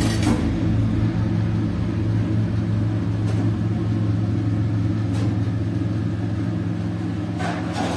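Steady low rumbling hum of kitchen equipment, with a few faint light clinks about three and five seconds in and again near the end.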